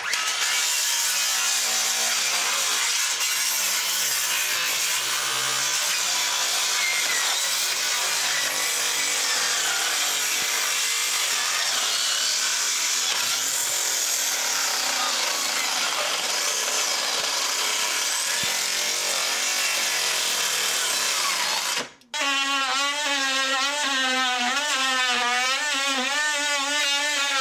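Handheld power tool cutting into an old wooden subfloor from below. A dense, harsh cutting noise lasts about 22 seconds, then after a brief break it turns into a pitched, wavering whine as the cut goes on.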